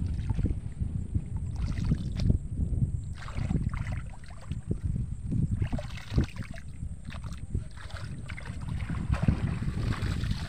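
Hands scooping and slapping wet mud and shallow water around the base of a cane fish trap: irregular squelches and splashes, over a low rumble of wind on the microphone.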